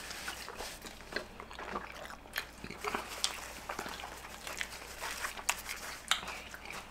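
Close-miked eating: chewing and wet mouth clicks and smacks from people eating sausages in buns, irregular and scattered.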